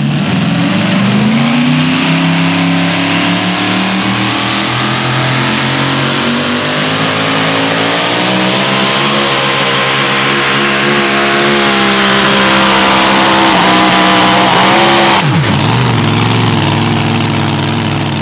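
Supercharged engine of a super modified four-wheel-drive pulling truck at full throttle under load as it drags the sled, its pitch climbing over the run. About three seconds before the end the throttle is cut abruptly and the engine winds down.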